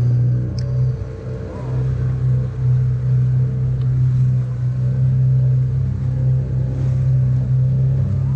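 Small boat's engine running steadily under way, a constant low hum, with water rushing and splashing past the hull.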